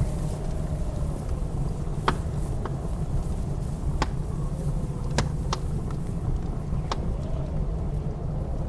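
Wood fire crackling, with about six sharp pops scattered through, over a steady low rumble of blizzard wind that carries a faint wavering howl.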